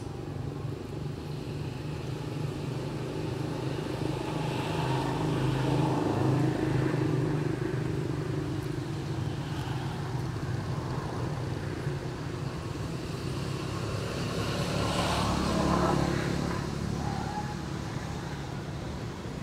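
Road traffic: motor vehicles passing with a steady low engine hum that swells twice, about six seconds in and again about fifteen seconds in.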